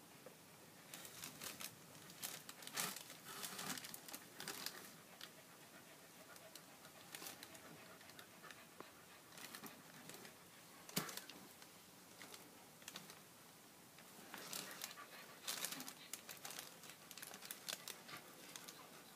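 Faint crinkling and rustling from sneakers being handled against crumpled packing tissue paper. It comes in several bursts of crackles, with one sharp click about eleven seconds in.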